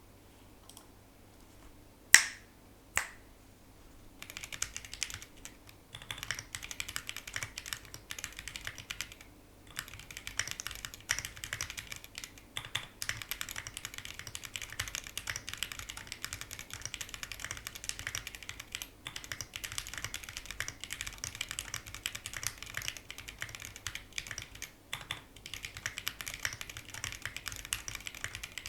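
Mechanical keyboard with Gateron X linear switches and tall SA-profile Domikey keycaps being typed on quickly and continuously, with a couple of short pauses. Two sharp knocks, the loudest sounds, come before the typing starts.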